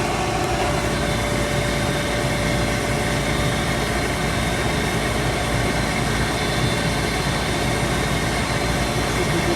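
Gas pack's vent (draft-inducer) motor running steadily with a constant hum and a faint steady tone.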